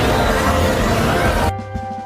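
A group of children cheering, a dense noisy wash of young voices, which cuts off suddenly about one and a half seconds in as a bright melodic tune of clean held notes begins.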